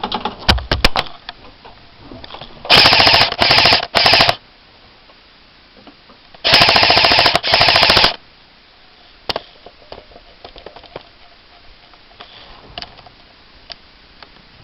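Airsoft gun firing on full auto: a quick rattle of rapid, even shots in three short bursts a few seconds in, then two more bursts a few seconds later, with scattered light clicks and knocks in between.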